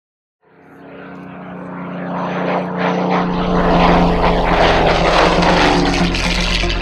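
Supermarine Spitfire's Rolls-Royce Merlin V12 engine and propeller in a flypast, fading in and growing louder to a peak about four seconds in, then dropping slightly in pitch as the aircraft passes.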